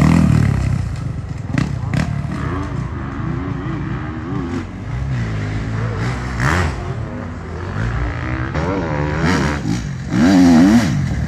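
Enduro dirt bike engines, revved up and down in short throttle bursts as riders pick their way down a steep dirt track. The engine is loudest as one bike passes at the start, fades, and is loud again as the next bike arrives about ten seconds in.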